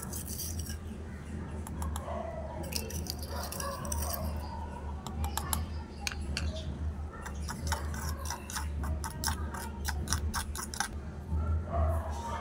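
A small metal spatula clinking and scraping against a miniature clay cooking pot as the contents are stirred: a run of quick sharp clicks, thickest in the middle and latter part, over a steady low rumble.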